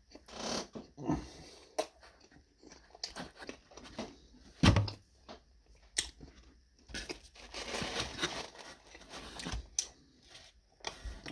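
A person chewing and biting into pizza: irregular mouth noises with short clicks.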